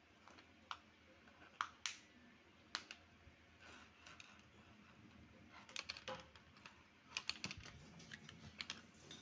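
Scattered light clicks and taps, irregular and sharp, a few at first and then coming in quick clusters over the last few seconds, over a faint quiet background.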